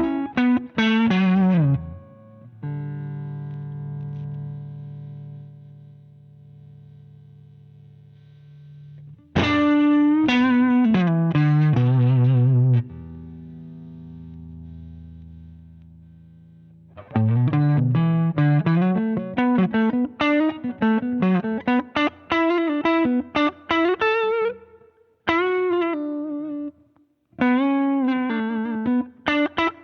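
Electric guitar through a Danelectro Transparent Overdrive V2 pedal, overdriven tone. Quick single-note runs, twice a chord left to ring and fade, then busy riffing with short breaks.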